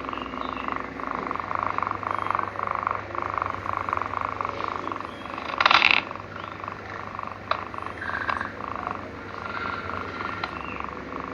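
A sleeping kitten snoring in a quick, rhythmic string of short breaths, with a brief louder noise a little past halfway.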